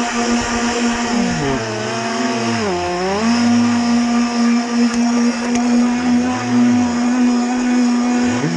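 Electric drive motor of a radio-controlled model catamaran whining steadily, heard from a camera mounted on the boat over a rushing hiss of water and wind. The pitch sags and comes back up twice, about two to three seconds in and again around six to seven seconds.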